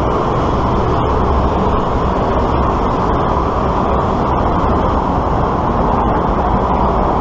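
Steady rush of wind over the microphone of a camera on a moving bicycle, mixed with the running noise of motor traffic in the lanes alongside.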